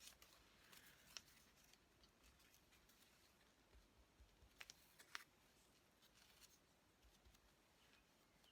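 Near silence, with a few faint clicks of paper being handled.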